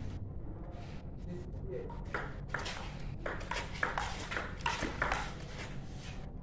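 Table tennis rally: the plastic ball clicks sharply off the bats and table in quick back-and-forth, starting about two seconds in.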